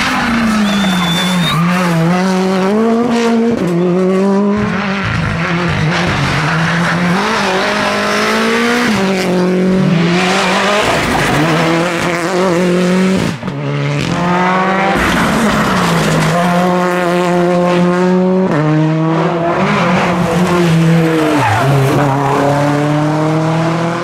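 Rally cars, among them a Hyundai i20 R5 and a Suzuki Swift, at full throttle through tarmac bends. The engine pitch climbs, drops and climbs again as the cars shift up and down through the gears, with a short break about thirteen seconds in.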